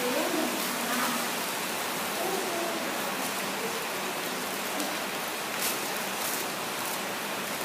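Steady background hiss, with faint voices in the first few seconds and a few faint clicks about five to six seconds in.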